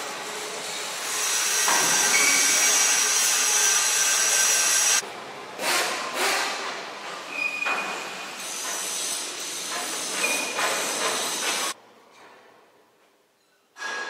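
Industrial machinery noise: a loud, steady hiss with a few brief high squealing whines. It cuts off abruptly about five seconds in and starts again, then drops to quiet near the end.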